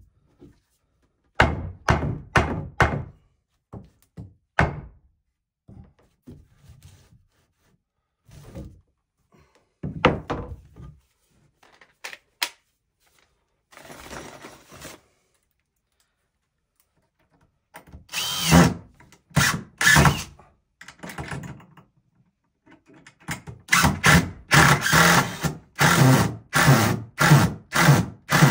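Wooden boards knocked and set into place with a few sharp thunks. Then a cordless drill/driver drives screws into the pine framing in short, repeated trigger bursts, which come thick and fast near the end.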